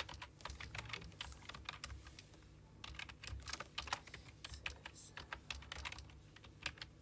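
Typing on a computer keyboard: a run of quick key clicks with a short pause about two and a half seconds in.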